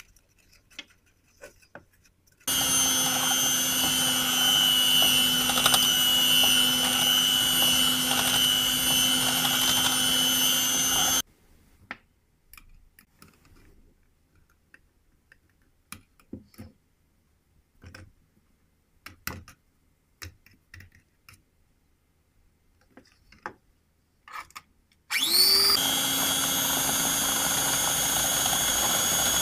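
Electric hand mixer running steadily as it beats a runny egg-and-oil cake batter, then stopping after about nine seconds. Light scattered taps follow as flour is sifted through a metal sieve, and near the end the mixer starts again with a rising whine and runs on steadily.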